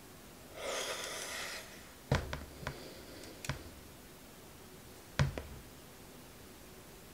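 Handling noise: a short rustle, then a quick run of four sharp knocks and clicks, and one more knock about five seconds in, as small objects are handled and set down.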